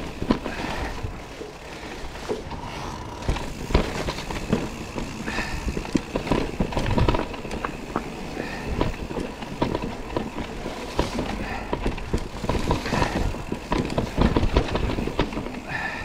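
Cube Stereo Hybrid 160 electric mountain bike riding over a rough dirt trail: steady tyre rumble broken by frequent knocks and rattles from the bike.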